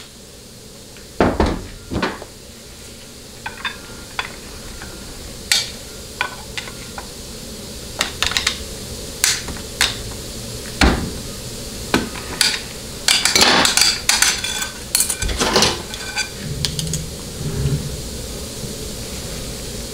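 Irregular metallic clicks and clinks of a steel snap ring being pried out of and worked in a Ford C6 forward clutch drum with a pick, steel on steel, with a dense flurry of clinks about two-thirds of the way through. The selective snap ring is being swapped for a thinner one to open up a clutch clearance that measured too tight.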